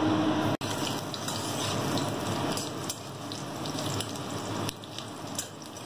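Chopped garlic sizzling in hot oil in a steel karahi, a steady frying hiss, with a steel spatula scraping and clicking against the pan as it is stirred.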